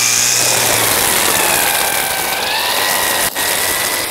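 Cordless battery brush cutter (Hyoja) running with its nylon string head spinning through grass: a high motor whine that wavers, sagging and recovering in pitch, over the swish of cut grass. The line is left long, which the operator finds too long and shortens, since a long line drags the motor down when power is short.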